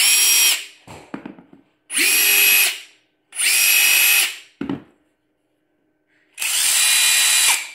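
Cordless impact driver on its slowest speed setting, spinning free with no load. It is triggered four times in short runs of about a second each, with a steady high whine, and a small clack follows some of the stops.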